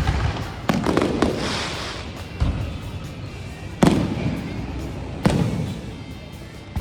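Fireworks display: aerial shells bursting with sharp bangs every second or so, each trailing off in a rumbling echo. A crackle follows one early burst, and the loudest bang comes about four seconds in.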